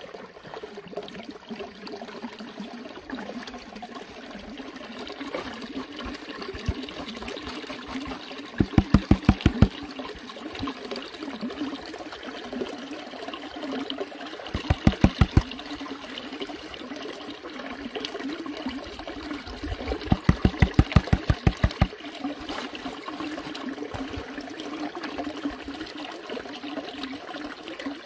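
Water swishing and sloshing in a plastic gold pan as the black sand concentrate is panned, broken three times by a short burst of rapid, rhythmic thumping.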